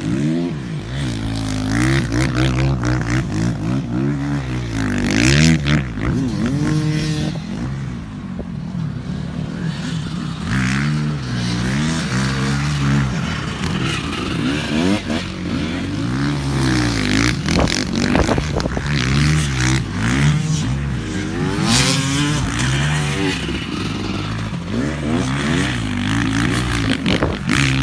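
Motocross dirt bike engines revving over and over, their pitch rising and falling as the bikes ride through loose sand.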